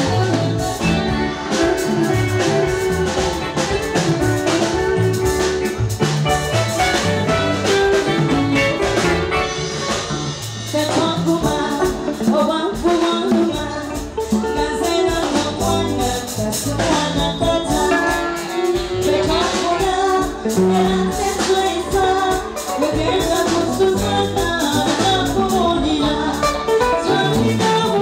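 Live band music with a steady drum-kit beat: a woman sings lead into a microphone and a saxophone plays alongside.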